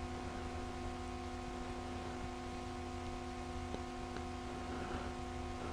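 Faint steady hum made of a few fixed tones over a low rumble and light hiss, with two tiny ticks near the end.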